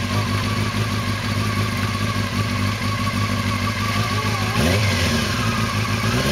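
Honda 600cc ATV engine idling steadily, then revved up sharply near the end.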